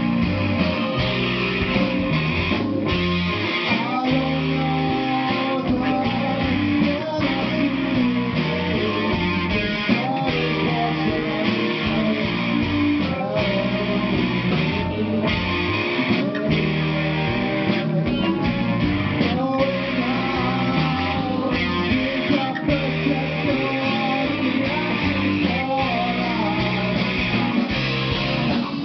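Rock band playing live, with strummed electric guitar to the fore over a changing bass line.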